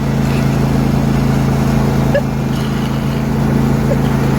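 John Deere D125 riding lawn mower's V-twin engine running at a steady speed while the tractor is driven along pulling its load.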